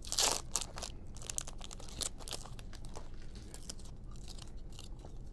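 Foil trading-card pack wrappers crinkling as they are handled, a short burst right at the start, followed by light clicks and rustles of cards being handled and flipped through.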